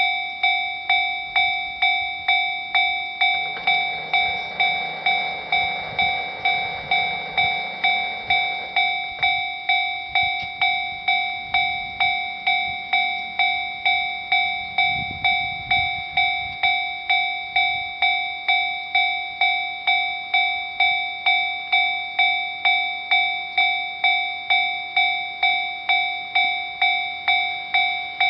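Japanese railway level-crossing warning bell, the JR standard electronic ding, ringing steadily at a little over two strikes a second while the crossing is closed for a train. A train's rumble comes in underneath from about four to nine seconds in.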